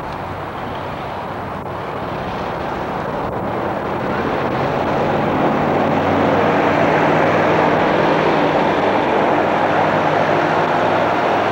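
A motor vehicle's engine running steadily, growing louder over the first several seconds as it comes closer, then holding.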